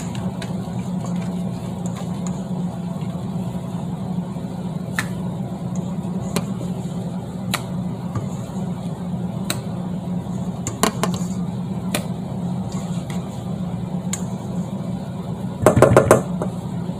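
Steady low mechanical hum, like a running motor or fan, under light clicks and scrapes of a silicone spatula against a stainless-steel mixing bowl as whipped cream is scraped out. A short louder burst comes near the end.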